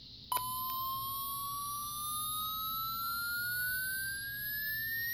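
Midland HH50B weather radio's alert test tone: after a click about a third of a second in, a single loud tone from its small speaker that rises slowly and steadily in pitch, like a slow siren sweep.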